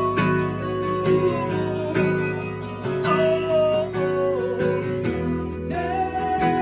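Live band music: strummed acoustic guitars with a man singing, steady and full throughout.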